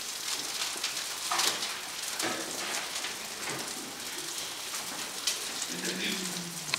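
Steak sizzling steadily in a hot pan as it is pan-seared, with a few faint clicks.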